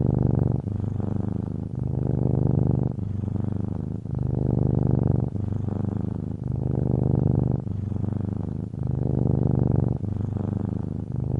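Domestic cat purring close up: a continuous low rattling hum that swells and eases with each breath in and out, about one full breath every two seconds.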